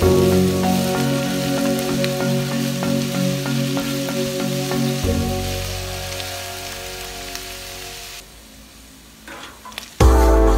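Pork, mushrooms and baby corn sizzling in a frying pan, stirred and scraped with a wooden spatula, under background music. The sizzle fades out about three quarters of the way through, and loud music starts near the end.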